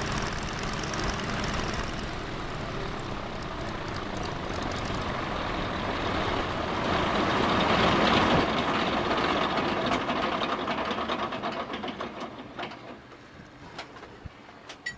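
Boeing Stearman biplane's radial engine idling with a knocking beat, briefly louder about halfway through, then winding down and stopping as the propeller comes to rest. A few clicks and knocks near the end.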